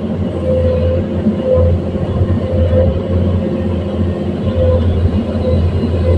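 Komatsu PC210-10 excavator's diesel engine running under working load, a steady loud rumble with a pitched whine that swells and fades repeatedly.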